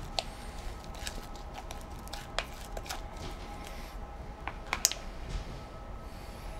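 Scattered light clicks and taps, about nine over several seconds, from bowls and utensils being handled on a table. The sharpest click comes near the five-second mark. A faint steady hum runs underneath.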